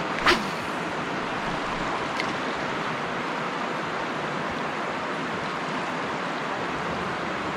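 Shallow river water rushing steadily over rocks and riffles. A single brief sharp sound comes about a third of a second in.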